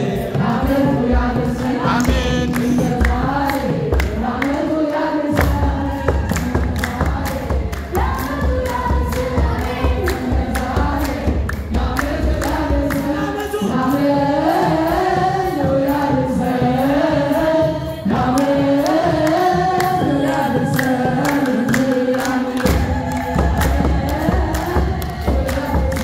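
A group of voices singing an Ethiopian Orthodox church hymn together, with a rising and falling chant-like melody over a steady percussive beat.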